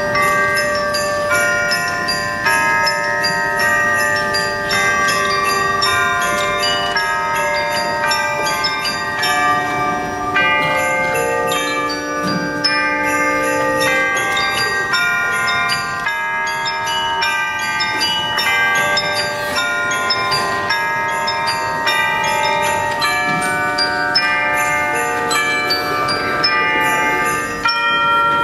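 Bells and mallet percussion playing traditional Christmas carol melodies, many struck notes ringing on and overlapping one another.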